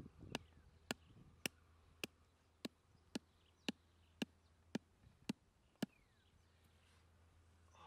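A hatchet knocking a wooden stake into the ground: eleven sharp knocks, about two a second, that stop about six seconds in.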